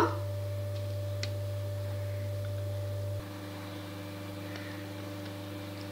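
Steady low electrical hum with a faint higher tone above it. Its tone shifts and it drops slightly in level about three seconds in.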